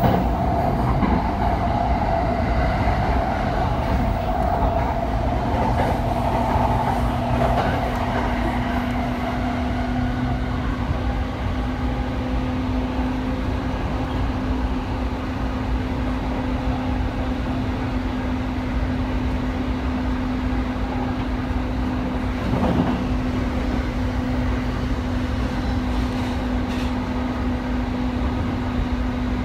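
Running noise of a JR East E217-series train at speed, heard from inside the car: a steady rumble of wheels on rail with a steady hum from the traction motors. A higher whine fades out about a third of the way in, and there is a single brief knock about three-quarters of the way through.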